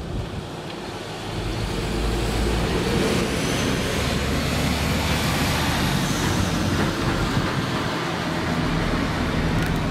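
Armoured police truck's engine running as it drives slowly past, with tyre and road noise. The sound grows louder over the first two seconds, then holds steady.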